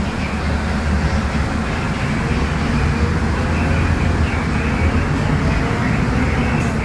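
Scania DC09 five-cylinder diesel of a Scania K250UB midibus running steadily under way, heard inside the cabin with road noise. A faint whine rises slowly in pitch a couple of times.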